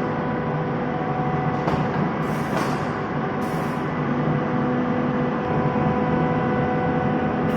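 Rotary screw air compressor running steadily, a dense hum with several steady whining tones over it. Short bursts of air hissing break in about two, two and a half and three and a half seconds in.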